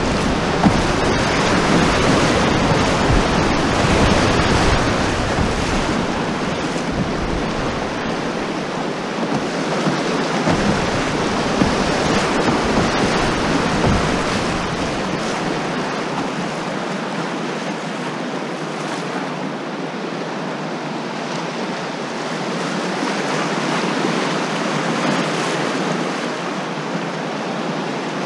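Whitewater rapids rushing and splashing steadily around an open canoe running a glacial mountain river. The sound is a little louder in the first few seconds.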